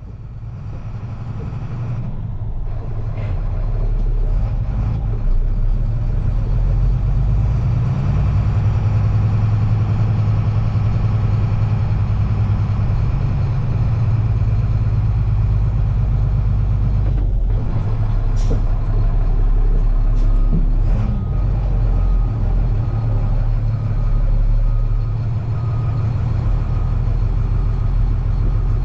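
Large diesel engine running steadily with a low rumble, fading in over the first few seconds, with a few short knocks about two-thirds of the way through.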